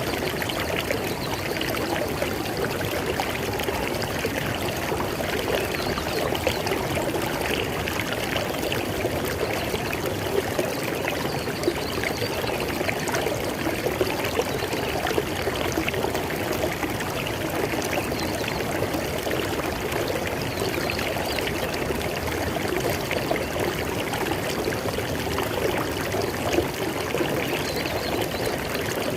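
River water flowing steadily over rocks, a continuous rushing and babbling with fine splashing.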